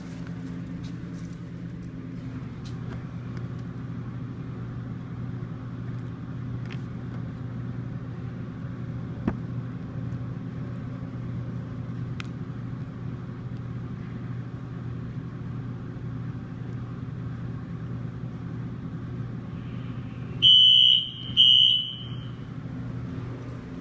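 Steady low hum, then near the end a fire alarm sounder gives two loud, high-pitched blasts, each just under a second long.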